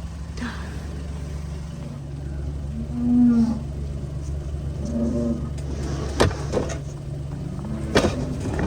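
A vehicle engine running with a steady low hum while cattle moo twice, about three and five seconds in, and a couple of sharp knocks sound near the end.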